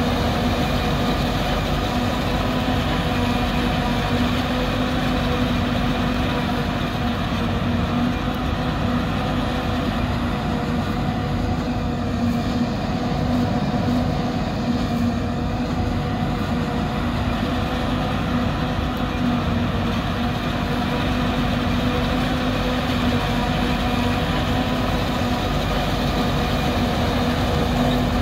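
New Holland 2100 self-propelled forage harvester running steadily under load while chopping corn, a constant mechanical hum with a steady drone-like tone over a low rumble.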